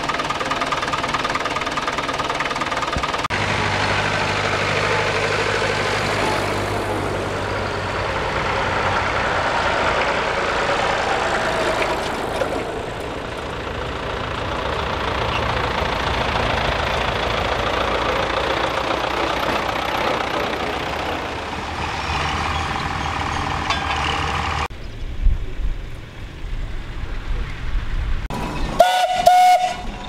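Vintage tractor engines running steadily across a stubble field. Near the end, a short whistle note sounds once.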